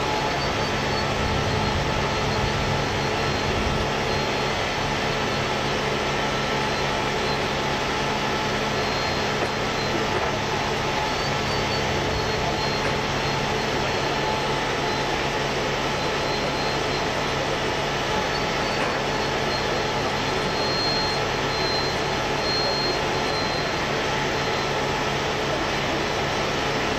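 Heavy diesel engines of rotator tow trucks running steadily under load, a continuous mechanical roar with a faint high whine on top.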